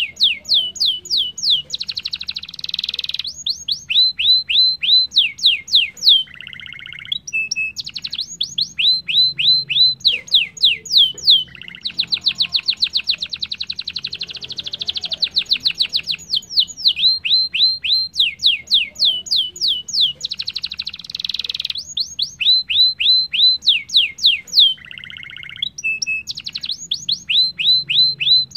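Domestic canary singing a long, continuous song. Runs of rapid, sharply falling whistled notes alternate with short rolling trills, and a long, very fast trill comes in the middle.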